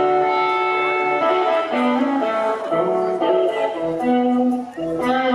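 Live band playing the instrumental introduction to a slow gospel-blues song, with guitar carrying held melody notes over the band.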